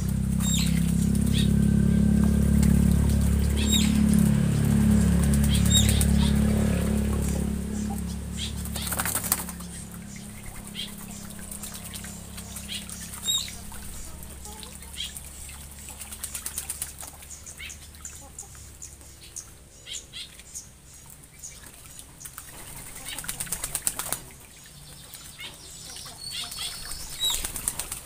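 Black-winged stilts and a magpie-robin bathing in a shallow pond, splashing and flapping their wings in several quick bursts, with short high chirps in between. A low rumble runs through the first eight or nine seconds.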